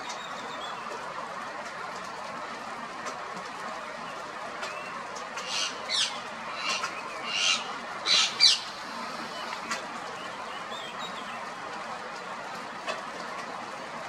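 Wild ring-necked parakeets squawking: a quick run of about six harsh, high calls in the middle, over a steady background noise.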